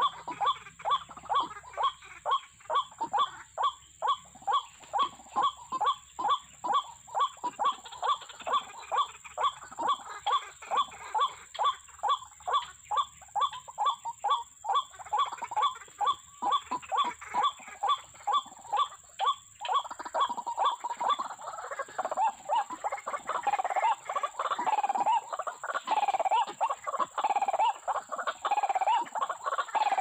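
White-breasted waterhen calling: a long run of quick, evenly repeated 'wak wak' notes, about two a second, that changes after about 20 seconds into slower, bending 'ruak' calls.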